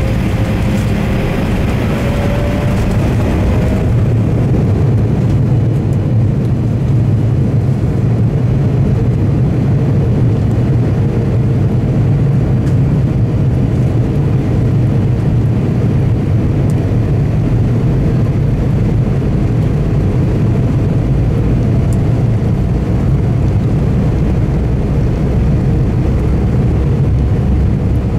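Jet engines of an Embraer E170 heard inside the cabin, running with a steady low rumble. A thin whine rises slightly in pitch over the first few seconds, and the higher hiss fades after about four seconds.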